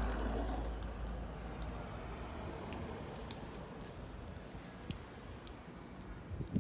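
Snowstorm wind buffeting the microphone, easing off after about two seconds, with scattered faint clicks.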